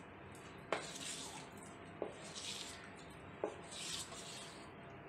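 A spoon stirring thick semolina batter with chopped vegetables in a stainless steel bowl: three light clinks of the spoon against the steel, about a second and a half apart, each followed by a soft swish through the batter.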